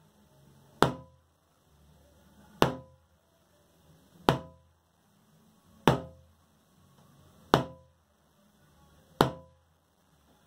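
A large can struck with a wooden beater in six slow, even blows about every second and a half to two seconds, each a sharp hit with a short ringing tail. It is a foley imitation of a giant's footsteps.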